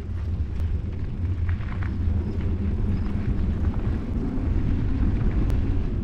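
Steady low rumble of a mountain bike rolling along a dirt singletrack: tyres on packed dirt mixed with wind buffeting the camera's microphone, with a few faint clicks and rattles from the bike.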